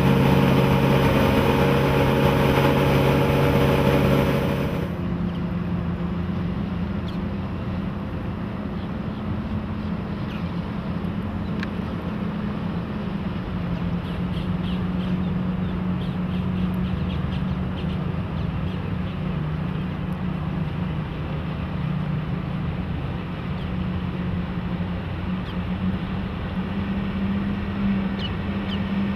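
A MerCruiser 7.4 L big-block V8 inboard powering a Maxum 2800 SCR cruiser under way: loud at the helm with wind rushing past for the first five seconds. It then cuts to a quieter, steady engine hum as the boat runs past at a distance.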